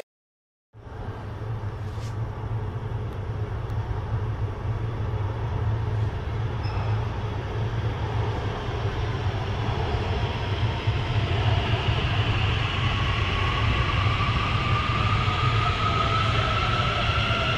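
A CAF-Thales AS-14 steel-wheeled metro train approaching and running into the station. Its rumble grows steadily louder, and an electric whine rising in pitch comes in over the last third.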